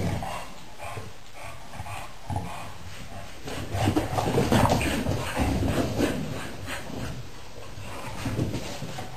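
Chow chow puppies play-fighting, with short puppy vocal sounds that are loudest about four to six seconds in.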